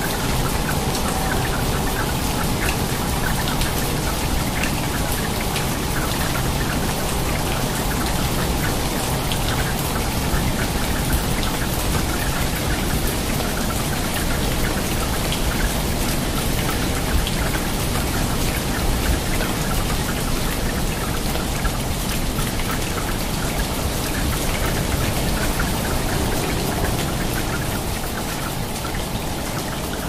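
Steady rain: a dense, even hiss full of countless small drop impacts.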